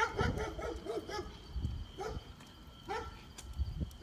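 A dog barking: a quick run of barks in the first second, then single barks about once a second.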